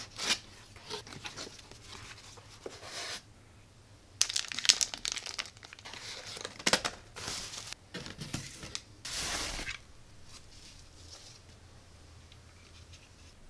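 Security camera boxes being unboxed: packaging crinkling and tearing in irregular bursts for about ten seconds, then only faint handling.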